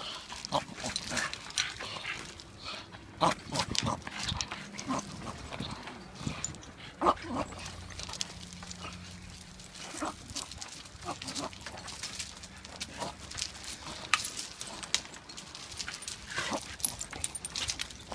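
Dogs playing rough on loose gravel, their paws scuffling and crunching the stones in many short, scattered bursts, with brief dog vocal sounds.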